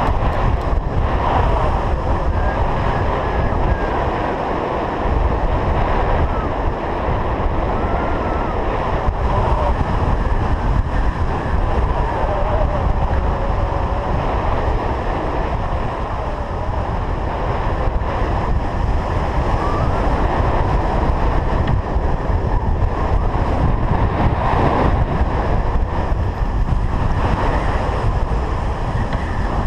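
Strong wind blowing across an action-camera microphone: a loud, steady rushing with a deep buffeting rumble underneath.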